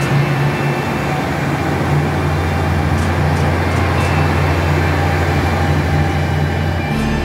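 KiHa 85 series diesel multiple unit's Cummins diesel engines running under power as the train pulls out, a steady low drone, with a few light clicks about three to four seconds in.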